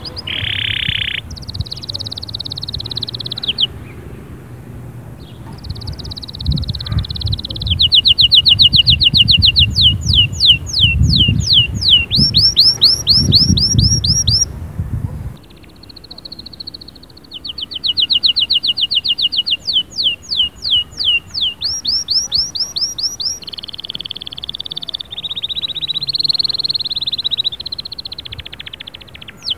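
Domestic canary singing a long song of fast trills, each a rapid run of repeated notes. The phrases change every few seconds, with a softer stretch near the middle.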